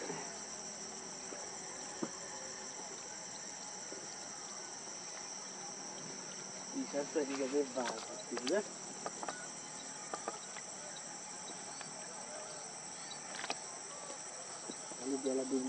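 Steady, high-pitched insect chorus. A man's voice speaks briefly about seven seconds in and again near the end.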